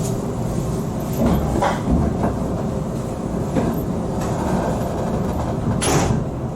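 Train running on rails: a steady low rumble broken by a few sharp clunks and knocks at irregular intervals, the loudest a little before the end.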